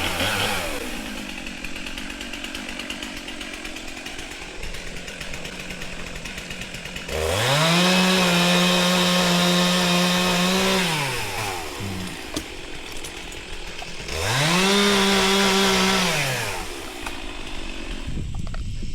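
Two-stroke chainsaw winding down from high revs, idling, then opened up to full throttle twice, held at a high, steady pitch for about four seconds and then about three, falling back to idle after each.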